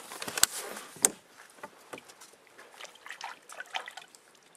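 Two sharp knocks about half a second and a second in, then soft crackling rustles of a wool sweater close to the microphone as a man leans over the side of a canoe, with light trickling and sloshing of water.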